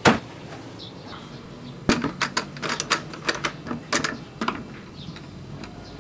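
Plastic buttons of a child's toy box being pressed: a sharp knock at the start, then an irregular run of quick clicks and taps from about two seconds in.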